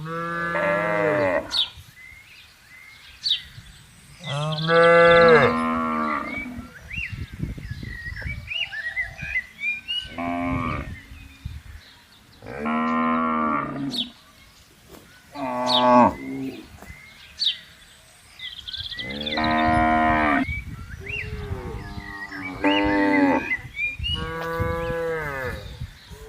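Cattle mooing repeatedly: about eight long, drawn-out moos a few seconds apart, differing in pitch, two of them overlapping near the end.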